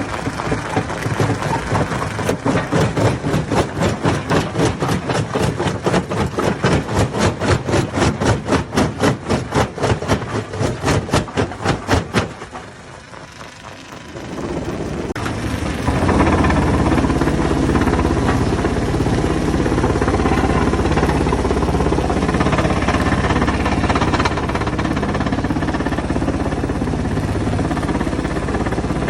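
Stone-crusher machinery running loud. For about twelve seconds it makes a fast, regular pulsing that stops abruptly. After a short lull a steady, heavy running sound takes over and continues.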